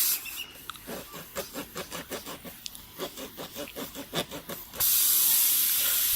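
Tubeless tyre being reamed with a plug kit's rasp tool: short rhythmic strokes, about four a second, as the tool is worked in and out of the puncture. About five seconds in, a loud steady hiss begins as air escapes through the opened hole.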